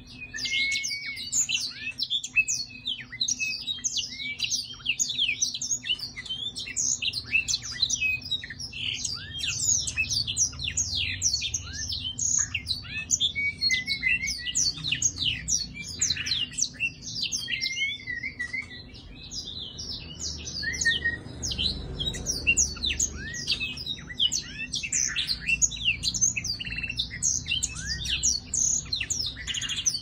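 A caged black-throated songbird (thạch yến cổ đen) singing a long, rapid twittering song of quick high chirps and trills, with a short lull about two-thirds of the way through.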